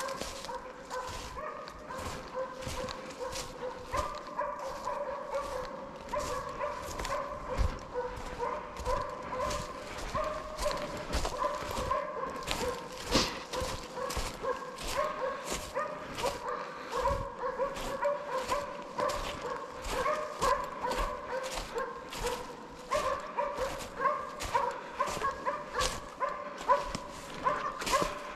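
Slovak hounds barking and yelping in a steady, unbroken chorus, with many sharp yips throughout.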